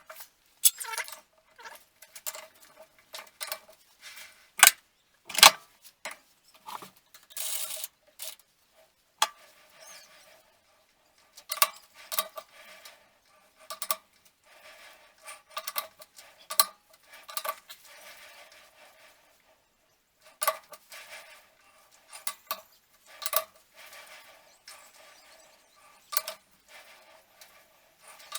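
Metal clicks and knocks from a lathe chuck as round bar stock is clamped with the chuck key and adjusted to run true. The knocks come at irregular intervals, and many leave a short ringing note in the metal. The loudest pair comes about five seconds in.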